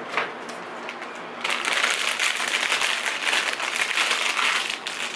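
Packaging being handled and crinkled, a few light clicks first and then continuous crackly rustling from about a second and a half in until shortly before the end.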